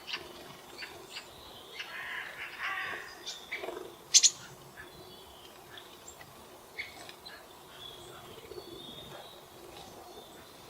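Small wild birds chirping and calling in short, scattered high notes, with one sharp, loud chirp about four seconds in.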